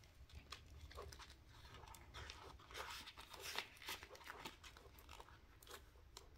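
Faint rustling and crinkling of banknotes and a cash envelope being handled, with scattered light ticks.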